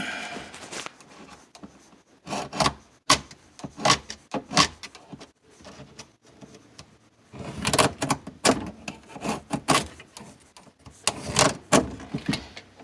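Scattered clicks and knocks, with a stretch of scraping about halfway through, from a level and pencil being handled against drywall while a cut line is marked.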